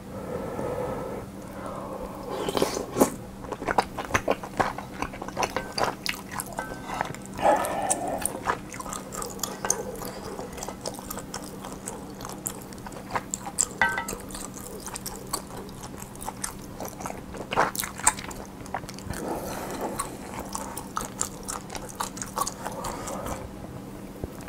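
Close-miked eating: chewing and biting with many irregular short wet mouth clicks, over a faint steady low electrical hum.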